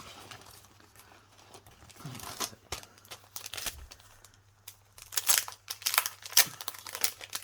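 Crinkling and rustling of craft packaging and paper being handled, with scattered light clicks and taps, busiest and loudest in the second half.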